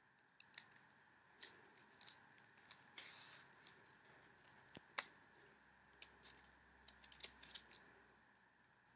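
Faint, irregular snips of small scissors cutting through folded paper.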